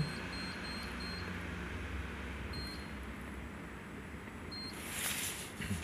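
Card-payment PIN pad on a metro ticket vending machine beeping as keys are pressed: four short high beeps in quick succession in the first second, then two more single beeps spaced a couple of seconds apart, over a steady low hum.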